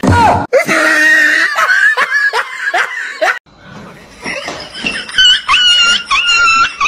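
A group of people laughing loudly in bursts. About three and a half seconds in it cuts off, and a string of repeated high-pitched animal cries follows, roughly two a second.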